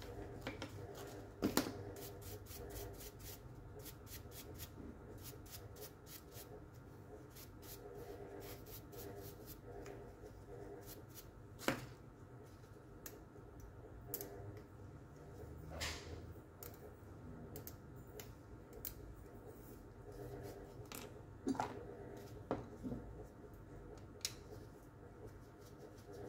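Small metal parts and hand tools being handled on a workbench: a steel pick and screwdriver clicking, tapping and scraping against a cordless drill's motor and switch assembly, with a few sharper knocks.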